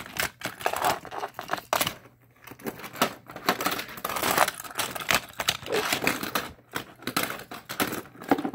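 Plastic toy cars and a plastic playset being handled: a run of irregular clicks, taps and rattles.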